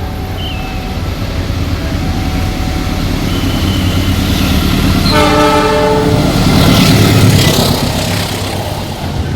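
GE diesel-electric locomotive passing, its diesel engine rumbling and growing louder toward the later part, with one short horn blast about five seconds in.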